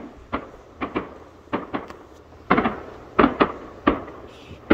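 Distant fireworks exploding in quick succession: a string of sharp bangs, about two a second.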